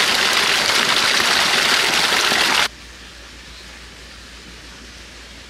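Water gushing hard from an irrigation pump's outlet pipe, a loud steady rush. It cuts off suddenly about two and a half seconds in, leaving quiet outdoor ambience with a faint low hum.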